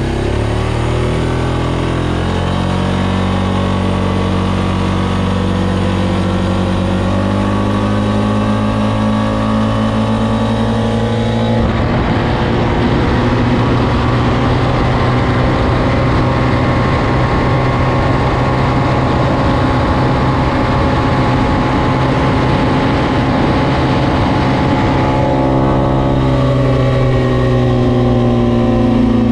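Suzuki KingQuad 400 ATV's single-cylinder engine pulling under load as the quad speeds up. Its pitch climbs steadily for about twelve seconds, then holds near top speed. Through the middle stretch a rough wind rush over the microphone is added, and it eases off again near the end.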